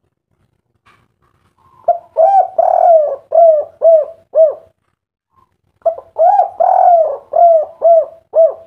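Spotted dove (derkuku, tekukur) cooing a 'kuk 3' song. It gives two loud phrases with a short pause between them, each a run of about six short coos.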